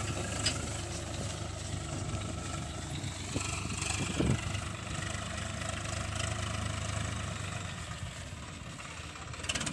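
Tractor diesel engine running steadily at low revs while pulling a trailer slowly across soft, muddy paddy-field ground.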